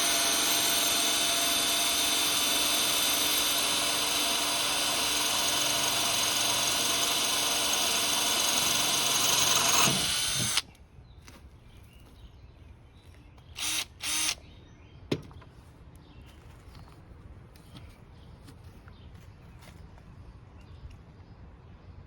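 Electric drill running steadily at full speed for about ten seconds, then stopping abruptly. A little later it gives two short bursts, followed by a single click.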